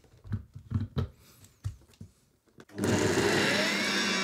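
A few short knocks as the blender jar full of chillies is handled and seated, then, a little under three seconds in, the countertop blender's motor starts and runs steadily, blending fresh chillies with salt and dried cardamom pods. Its whine rises as it spins up.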